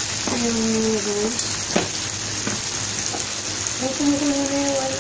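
Meat and hot dogs sizzling steadily on an electric grill pan, with a sharp click of a utensil on the grill about two seconds in.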